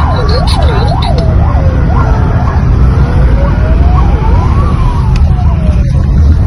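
Police sirens wailing: a fast yelp for the first second or so, then a slow wail that rises and falls over a few seconds. Underneath is the steady low drone of road noise inside a moving car.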